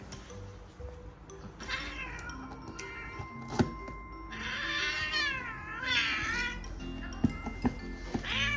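Kitten meowing about four times, the two loudest and longest calls in the middle, while its claws are clipped: distress at the nail trim. A few sharp clicks of the nail clipper come between the calls.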